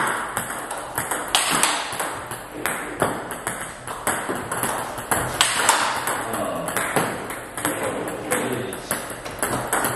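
Table tennis rally: the ball struck back and forth by paddles, one of them a Tibhar Nuytinck blade of five wood plies and two hybrid ZC layers, and bouncing on the table. It makes a quick, regular run of sharp clicks and pings.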